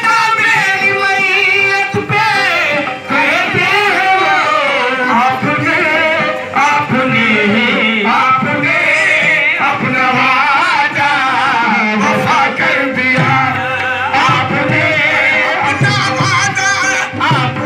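Qawwali: devotional singing with harmonium accompaniment, loud and continuous.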